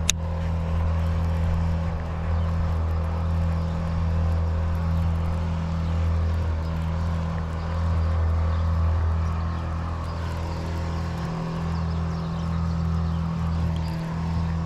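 A low, steady engine drone with an unbroken hum, holding level throughout, and a single sharp click at the very start.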